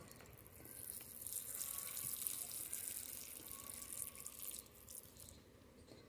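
Liquid squirted from a plastic squeeze bottle into an open wound on an animal's skin, a soft steady hiss that stops about five seconds in.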